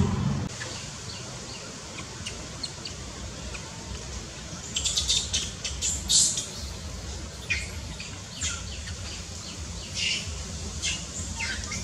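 Birds chirping in short, high calls, scattered and growing more frequent from about five seconds in, over a low steady rumble.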